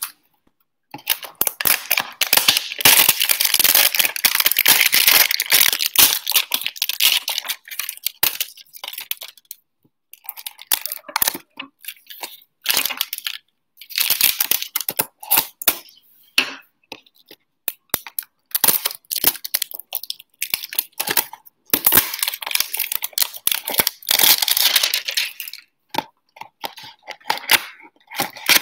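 Crinkly plastic shrink-wrap being torn and peeled off a cardboard trading-card hanger box in long ripping stretches with pauses, and the box's cardboard flap being pried open near the end.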